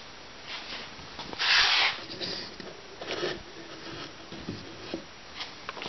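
Short rubbing and scraping noises from parts being handled on the scale tank's hull. The loudest comes about a second and a half in, with a shorter one about three seconds in and a few faint ticks between.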